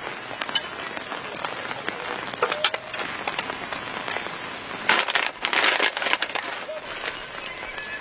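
Rain pattering on a camping tent, a steady hiss with scattered ticks. A louder rush of noise comes about five seconds in and lasts a second or so.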